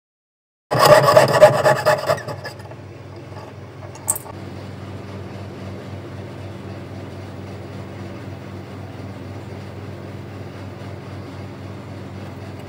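Jeweller's piercing saw cutting through thin metal sheet in rapid rasping strokes for about a second and a half, then a single click a little before the midpoint, followed by a steady low hum.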